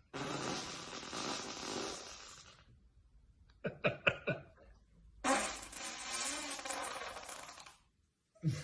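Farts in a row. First a long airy one, then a quick string of about five short, pitched pops, then another long airy one.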